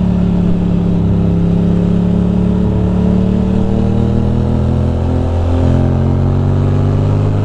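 Ducati Monster's V-twin engine running under way on the road. Its note shifts about five seconds in and then slowly rises.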